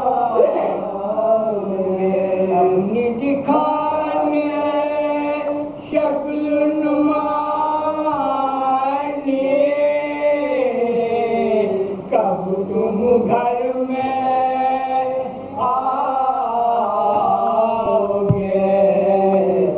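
Several men chanting a marsiya (Urdu elegy) together in soz-khwani style, unaccompanied, in long held melodic lines that glide slowly up and down, with short pauses for breath between phrases.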